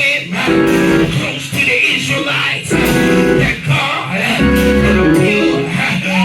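Music with a guitar playing chords over bass notes, in repeated short phrases.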